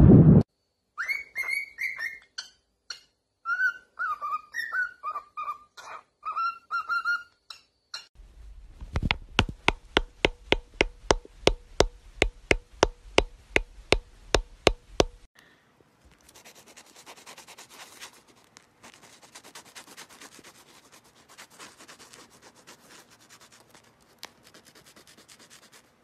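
A parrot whistling a run of short, separate notes that rise and fall in pitch. This is followed by a steady train of sharp clicks, about three a second, lasting several seconds, and then a faint scratchy noise.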